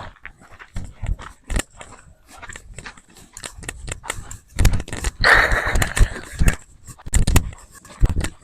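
Footsteps crunching and scraping along a hiking trail in irregular steps, with a louder rustling burst about five seconds in that lasts around a second.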